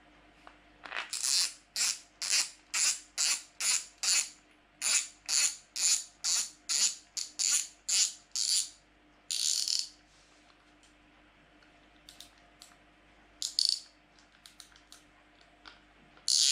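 Shimano Ultegra 5500 XTD carp reel's drag clicker ratcheting in about twenty quick bursts, roughly two a second, as the spool is twisted by hand to test the drag after new PTFE drag washers were fitted. A longer burst follows, then a few scattered clicks and one more burst near the end.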